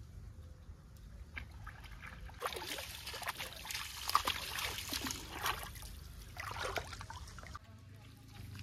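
Hands working a wet, watery bait paste: irregular sloshing and squelching for about five seconds, starting a couple of seconds in.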